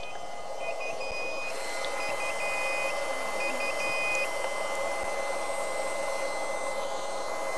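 Steady running of the smoker's smoke-generator blower, with a run of short high beeps in groups during the first half.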